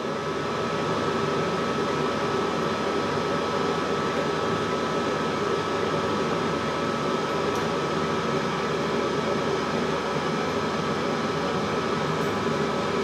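High-speed server fan in a fume extractor running at a middle speed setting: a steady rush of air with a steady whine, pulling air in through the extraction hose.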